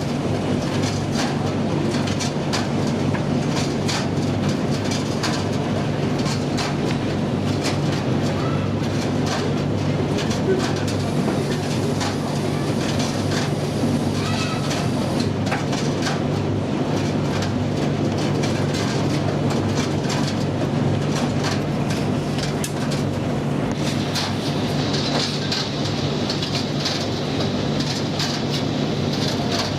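Commercial gas tumble dryer running with its burner lit: a steady motor and drum hum with frequent clicks and knocks from the load tumbling in the drum. A higher hiss joins for the last several seconds.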